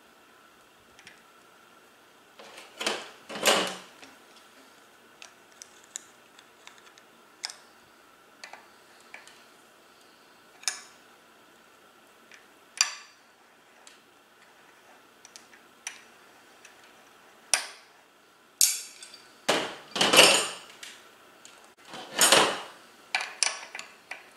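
Steel wrenches clicking and clanking against the axle cone and locknuts of a Shimano coaster brake rear hub as they are adjusted. Scattered light clicks, with louder clanks about three seconds in and a cluster of them in the last seven seconds.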